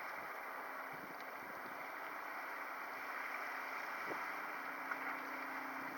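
Steady outdoor wind noise on the microphone over a harbour, with a faint steady hum joining about halfway through.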